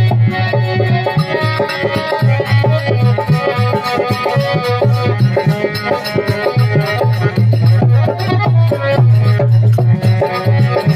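Instrumental interlude of a Rajasthani devotional bhajan: harmonium playing a quick melody over a steady hand-drum rhythm with a repeating low pulse.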